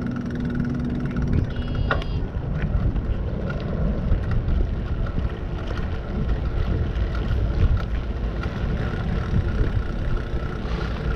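Wind buffeting the microphone of a moving bicycle, a steady low rumble, with a brief click about two seconds in.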